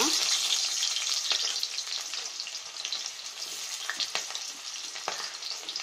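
Chopped onions frying in hot oil with fennel seeds in an iron kadai, just after being tipped in: a loud, steady sizzling hiss that eases a little, with a few brief clicks.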